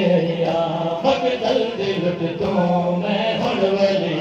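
Noha, a Shia mourning lament, chanted by male voices in long, wavering held notes.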